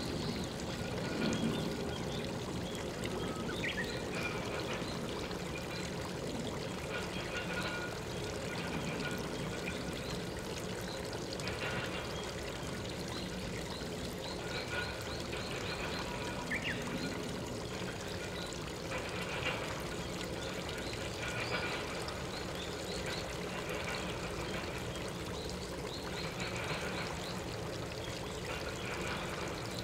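Steady sound of flowing stream water, with a few faint short high sounds now and then.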